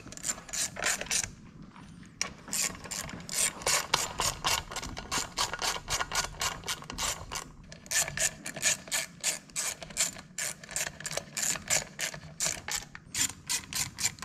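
A hand socket ratchet clicking as bolts on a small engine's crankcase are turned in. The clicks come in quick runs of about four a second, with brief pauses as the ratchet is swung back and reset.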